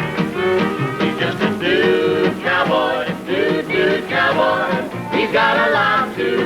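Country-and-western band playing an instrumental passage, with no vocal.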